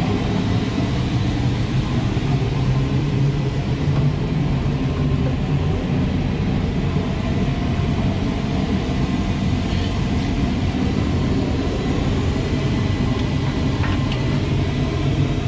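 Steady low rumble of running machinery or an engine, with faint steady whines above it and a few light knocks.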